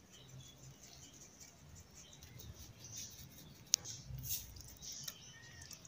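Faint patter of a plastic seasoning shaker sprinkling salt over raw chicken pieces held in the hand, with light scattered clicks and one sharp click a little under four seconds in.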